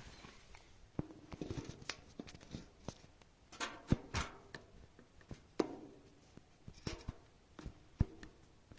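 Handling noises: scattered sharp clicks and knocks with brief rustles and tearing-like scrapes.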